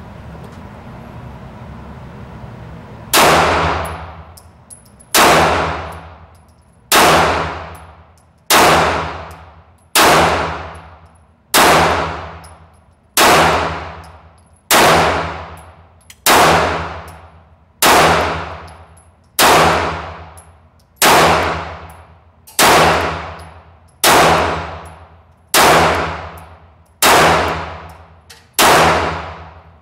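A ringing metallic clang struck about seventeen times at an even pace, roughly every second and a half, each one ringing out before the next, like a tolling bell. A low steady hum comes before the first strike.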